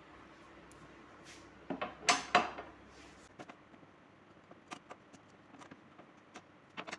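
Metal clinks and knocks of a wrench being fitted to and turning the scooter seat's 12 mm bolts, loudest in a short cluster about two seconds in, then scattered light ticks.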